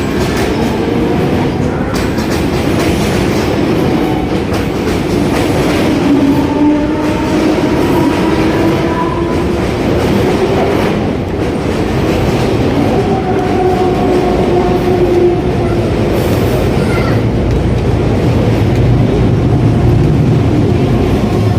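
Mumbai suburban electric local train running through the station: a steady loud rumble and clatter of wheels on the rails, with drawn-out whining tones that drift slightly in pitch.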